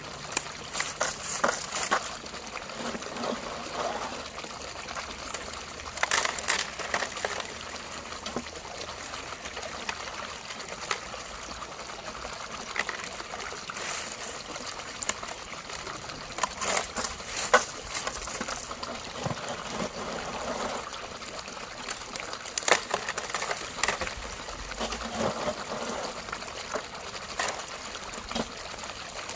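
Creek water trickling steadily, with clusters of short clicks every few seconds.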